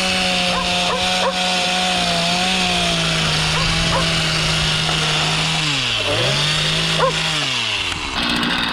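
Two-stroke chainsaw running hard at high revs while cutting wood. The revs drop and pick back up about six seconds in, then fall away again near the end.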